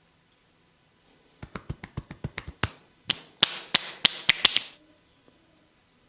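Percussive hand strokes of an Indian barber's head massage: a quick run of about a dozen light taps, then six or seven louder, sharper slaps with a hissy edge.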